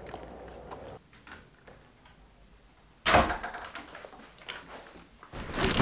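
A door opening with a sudden bang about three seconds in, followed by a few lighter knocks and another loud thump near the end.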